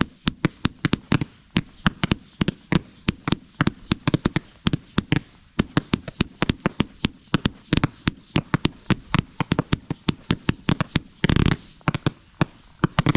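Z-shaped fan firework cake (gold horsetail with blue pearls) firing shot after shot, several sharp pops a second. Near the end a quick dense cluster of shots goes off just before it stops.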